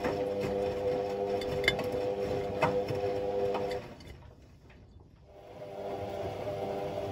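Hotpoint Ultima Extra WMA64 washing machine's new motor turning the drum during a wash tumble: a steady humming whine with a few knocks, stopping a little past halfway, then after a short pause starting up again.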